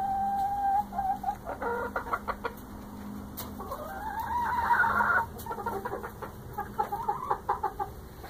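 Hens calling in a coop: a drawn-out squawk at the start, bursts of rapid clucking, and a louder, rising squawk about four seconds in. This is the complaining of agitated, ticked-off hens.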